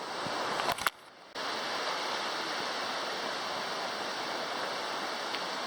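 Creek water rushing steadily. It drops out briefly about a second in, just after a couple of clicks.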